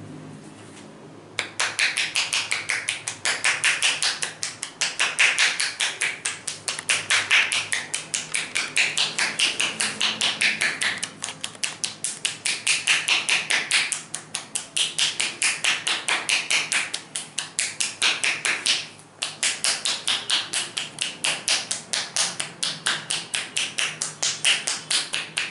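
Hands striking a person's back in rapid percussive massage strokes, sharp and evenly spaced at several a second. They start about a second and a half in and pause briefly about three quarters of the way through.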